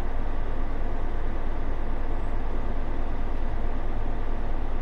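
John Deere 9620R's six-cylinder diesel engine running steadily at about 1100 RPM, held down by eco mode, heard inside the tractor cab.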